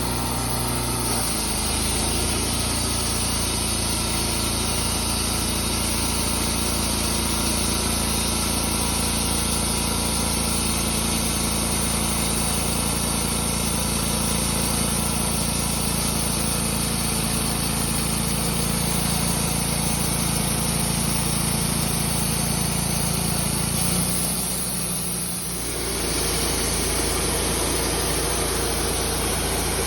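Wood-Mizer LT28 portable sawmill's engine running steadily, dipping briefly about 24 seconds in and then running on with a changed tone.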